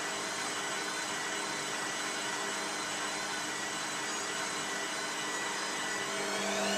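Beko WM5101W washing machine running with a steady whirring hum. Near the end its motor begins to whine upward in pitch as the drum speeds up.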